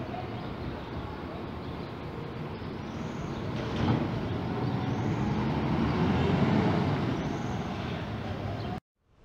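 Intercity coach bus's diesel engine running as the bus pulls away and drives off, growing louder as it accelerates past the middle, with a short knock about four seconds in. The sound cuts off abruptly near the end.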